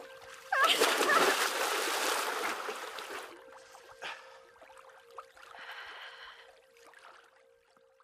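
A short cry, then about three seconds of loud splashing as a swimmer moves in bog water, fading to faint lapping and a few small knocks.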